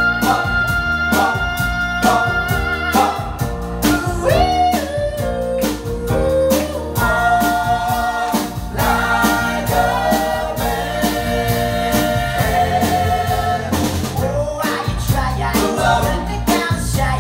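Six-man vocal group singing in harmony over a live band with electric bass and drums keeping a steady beat.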